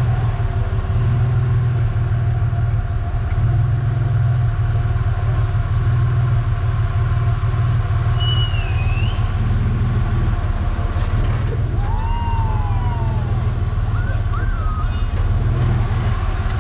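Off-road truck engine running steadily at a low, even speed, with a deep pulsing rumble. A few brief high chirps sound over it about halfway through and again near the end.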